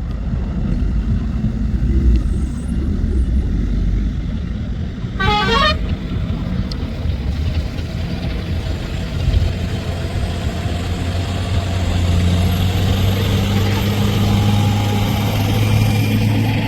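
Heavy diesel engine of earthmoving machinery running, its low drone turning into a steadier, louder hum about halfway through. A short high-pitched toot or squeal sounds about five seconds in.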